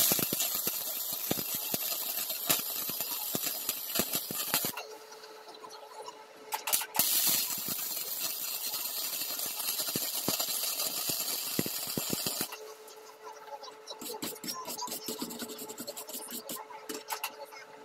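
Electric arc welding on a steel bar: two runs of steady crackling arc hiss, the first stopping about a third of the way in and the second starting again a couple of seconds later, over a steady hum. After the second run ends, a spell of quick clicks and scrapes from hand work on the weld.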